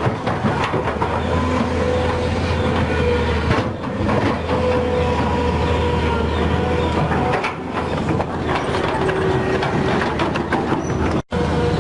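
Volvo excavator running under load: a steady low engine drone with a hydraulic whine and repeated metallic clanks and rattles. The sound cuts out for an instant near the end.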